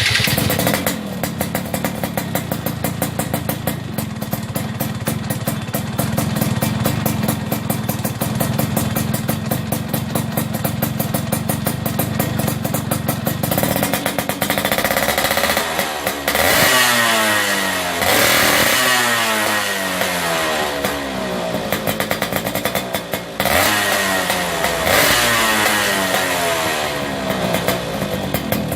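Yamaha F1ZR's 110 cc single-cylinder two-stroke engine, fitted with an aftermarket racing exhaust, idling steadily and then blipped repeatedly from about halfway through, the revs rising sharply and falling back after each blip.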